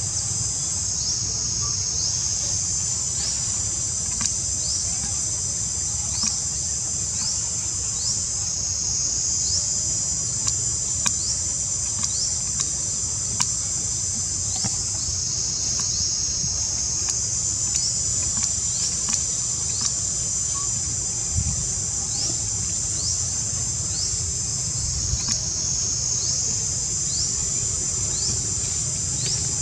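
Steady, high-pitched insect chorus, with short rising chirps repeating a bit faster than once a second and the chorus changing its pattern every several seconds.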